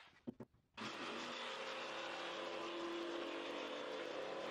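Corded jigsaw cutting plywood. The motor is silent at first apart from two short clicks, then starts up under a second in and runs steadily through the cut.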